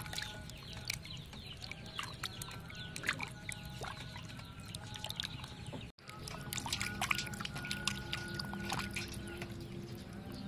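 Hands rubbing and scrubbing raw pig tongues in a metal basin of water: irregular splashing and sloshing with many small drips. The sound cuts out for an instant a little past the middle.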